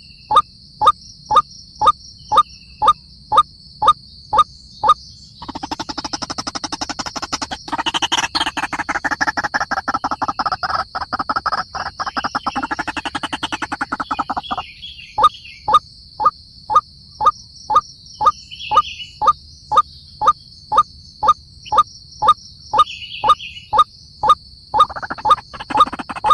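White-breasted waterhen calling: a monotonous series of short rising 'kook' notes, about two to three a second, broken from about five seconds in to about fourteen seconds in by a dense, rapid croaking chatter that returns near the end. A steady high-pitched whine runs underneath.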